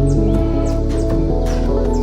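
Slow ambient relaxation music of sustained keyboard or synthesizer chords, with several short falling bird chirps over it.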